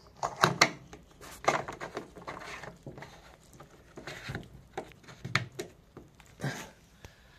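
Irregular clicks and knocks as plastic parts of a washing machine are handled and fitted back into place.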